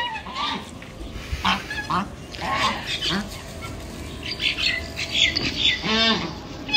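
Domestic geese giving short honking calls at irregular intervals while they feed, with a longer, rasping honk about six seconds in.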